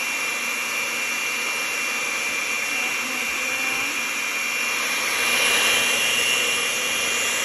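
Electric hand mixer running steadily with a high motor whine, its beaters whipping a white liquid in a glass bowl; it gets a little louder about five seconds in.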